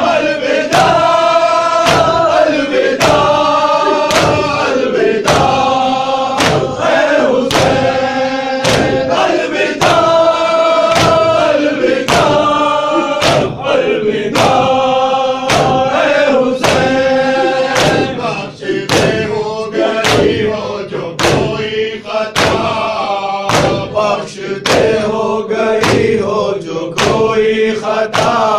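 Men chanting a nauha (mourning lament) together, with a steady beat of matam strikes: open hands striking chests in time with the chant.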